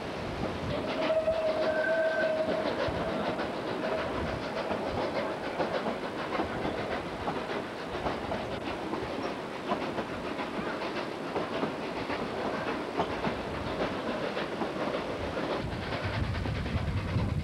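Steam train under way, its wheels clicking steadily over the rail joints. About a second in, the locomotive's steam whistle blows one held note and then fades away over a few seconds.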